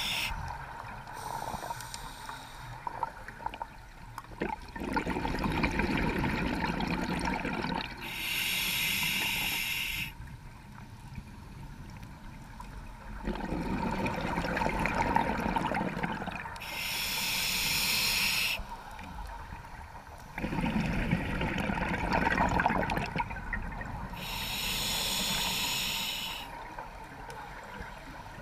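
Scuba diver breathing through a regulator underwater: a hiss from the regulator on each inhalation, then a low bubbling rumble of exhaled air, in a slow cycle of about three breaths.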